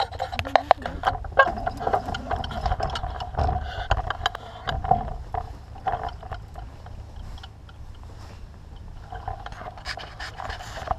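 Irregular clicks and knocks of a heavy catfish rod and reel being worked against a hooked fish, over a low rumble and a steady mid-pitched hum. The knocks thin out in the second half.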